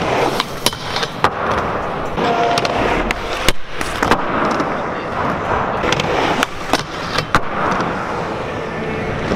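Skateboard wheels rolling steadily on a smooth skatepark floor, with sharp clacks of the board hitting the floor and ramp several times.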